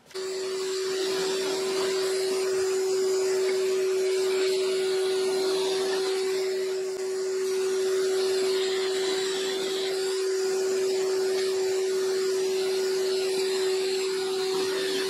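Shop vacuum running steadily for dust collection at a pocket-hole jig, a constant hum with a single unwavering tone.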